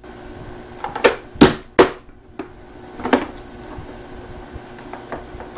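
Vidalia Chop Wizard plastic vegetable chopper: its lid is pressed down to force celery through the blade grid. This gives a few sharp plastic clacks and crunches, the two loudest close together about a second and a half in.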